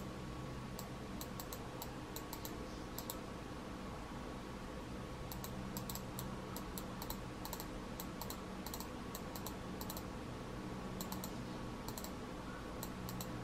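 Button clicks of an HP X1500 wired computer mouse, light, quick clicks often in pairs, coming in irregular clusters with short pauses between. A faint steady hum runs underneath.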